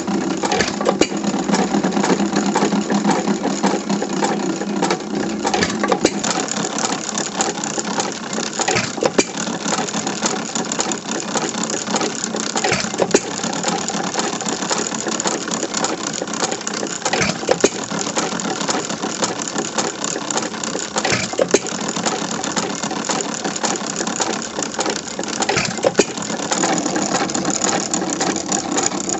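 c. 1912 Domestic Type A 1½ hp sideshaft engine running steadily, with a fast, even mechanical clatter from its moving parts and a sharper knock every four seconds or so.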